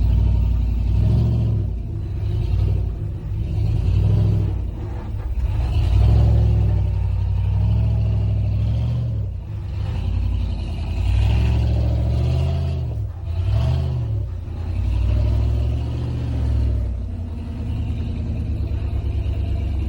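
Jeep engines revving up and down under load as the vehicles crawl up a steep off-road trail, the throttle rising and easing off every couple of seconds.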